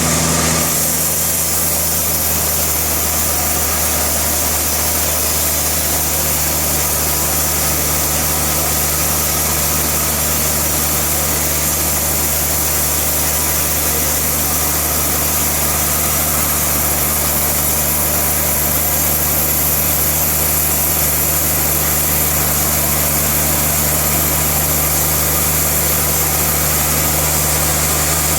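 Sawmill machinery running steadily, a constant motor hum under a bright, even hiss, with a slight change in tone about half a second in.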